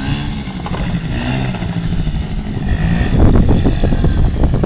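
Small youth ATV engine running, its pitch stepping up and down as the quad is ridden, with a louder, rougher noise taking over from about three seconds in.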